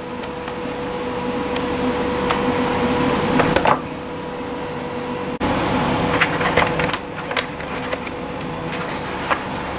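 A large 3D-printed plastic part being picked up and handled on a workbench: scattered clicks and knocks of plastic, a cluster about three and a half seconds in and several more near the end, over a steady hum.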